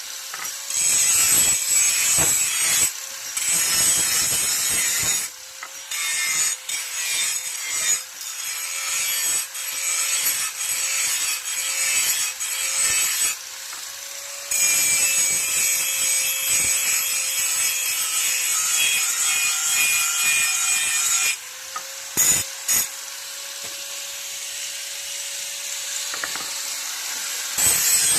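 A hand file rasping along an iron blade in long runs of scraping strokes, stopping briefly a few times, with a faint steady hum underneath.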